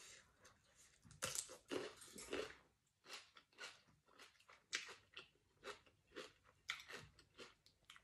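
A person chewing crunchy raw cucumber, a cluster of bites early on, then steady crunches about two a second.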